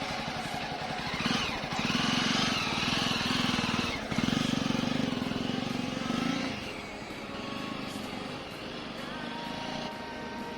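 Motorcycle engine running close by, louder for a few seconds and then settling to a lower, steadier note.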